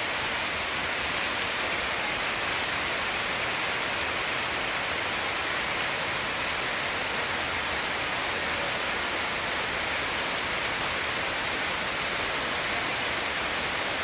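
Steady rain falling on the leaves of a forest canopy, an even hiss that holds level throughout.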